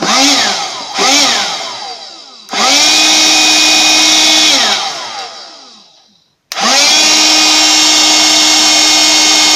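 AC-401 12 V electric air pump for an inflatable boat, wired straight to a car battery, switched on and off by touching its wire to the terminal. Its motor gives two short spurts, then runs steadily for about two seconds and spins down with a falling whine. It starts again with a rising whine and keeps running. The pump is working.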